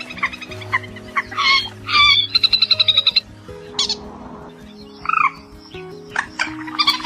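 Mandar (rail) calls played for bird luring: bouts of rapid, harsh, repeated notes, one loud fast run about two seconds in, with a couple of short rising-and-falling calls later, over a low, steady, stepping background tone.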